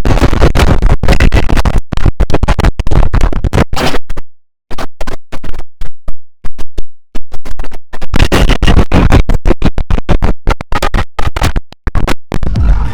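IBM OS/2 Warp 3 shutdown sound run through audio effects: chopped into rapid stutters and scratch-like cuts, with a couple of brief dropouts.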